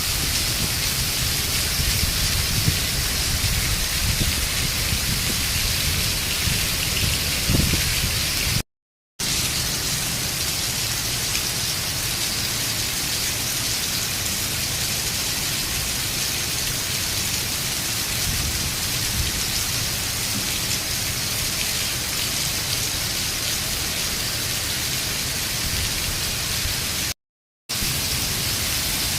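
Heavy rain pouring steadily, an even hiss. It is broken twice by about half a second of complete silence.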